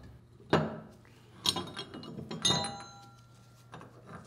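Metal clinking and knocking as a seat removal tool unscrews the valve seat from a cast dump valve body and lifts it out: three sharp clinks about a second apart, the last ringing briefly, then a couple of faint clicks.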